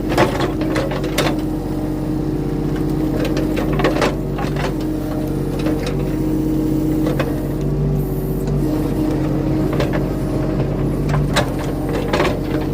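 Mini excavator engine running steadily under hydraulic load while digging dirt, with occasional knocks and clanks from the bucket and linkage.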